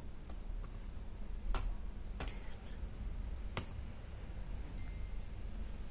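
Keyboard keys pressed slowly, one at a time: about half a dozen separate, irregularly spaced clicks, over a steady low hum.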